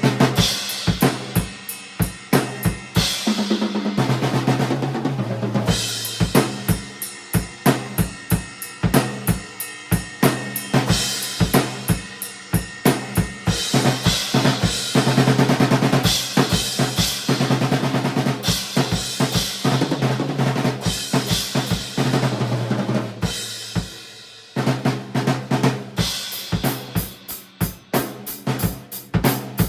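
Drum kit played continuously: beats and fills on a deep 14x10-inch snare drum with a low tuning, with bass drum, rimshots, rolls and cymbals. The playing eases off briefly about three quarters of the way through, then picks up again.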